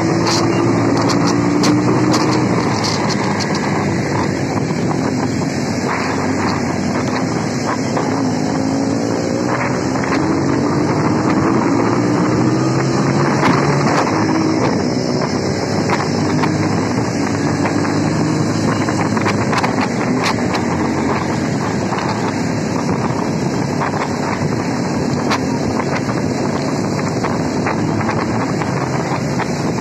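Motorcycle engine running at road speed, its pitch rising and falling with the throttle, under heavy wind noise buffeting the microphone.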